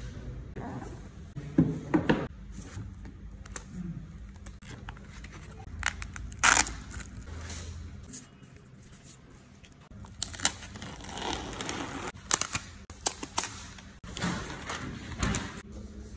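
Unboxing handling sounds: a cardboard box opened and a bubble-padded plastic sleeve and paper inserts slid out, crinkling and rustling, with scattered knocks and clicks. The sounds come in short spells with pauses between them.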